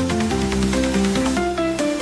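Background music: an electronic track with a stepping synth melody over a held bass.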